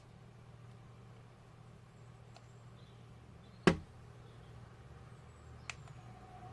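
One sharp click about three and a half seconds in, with a few fainter ticks, over a low steady hum.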